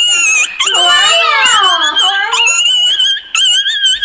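A high-pitched whining squeal held at a nearly steady pitch, joined between about one and two seconds in by a second whine that slides down in pitch.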